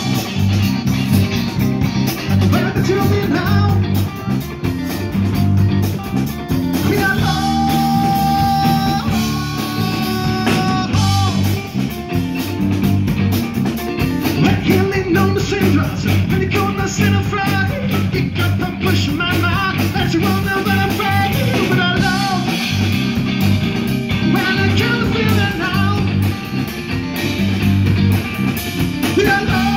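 Live rock band playing: electric guitar, bass guitar and drum kit, with a lead melody line held over them.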